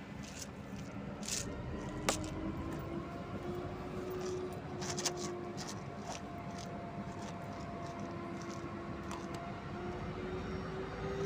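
Diesel locomotive hauling a cement tank-wagon train, rolling slowly past: a steady low engine rumble, with faint squealing tones that slide slowly in pitch and scattered sharp clicks, the sharpest about two seconds in.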